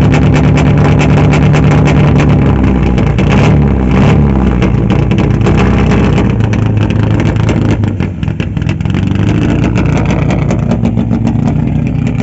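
Renault 18 GTX rally car's Berta-prepared four-cylinder engine running at raised revs, then dropping back about four seconds in to a rough, uneven idle.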